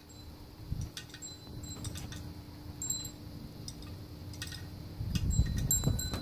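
Scattered light clicks and taps with faint, brief high-pitched tinkling pings as small birdhouse-kit pieces are handled, with a louder low rustling from about five seconds in.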